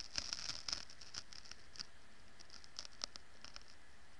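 Faint scratches and scattered small clicks from fingers handling a gaming headset close to its boom microphone, busier in the first second and then sparse.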